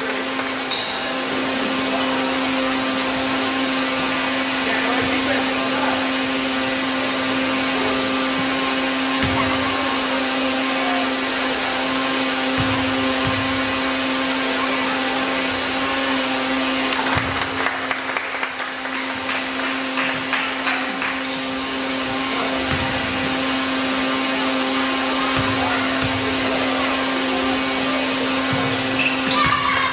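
Steady whirring machine drone with a constant low hum under it, the loudest sound throughout. Faint voices and a few dull low thumps sit beneath it.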